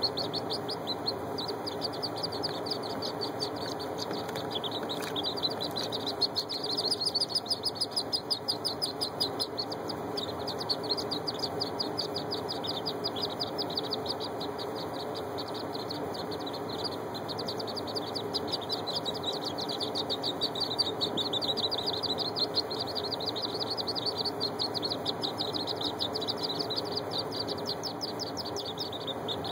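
A brood of wood duck ducklings peeping continuously: many short, high peeps overlapping, several a second.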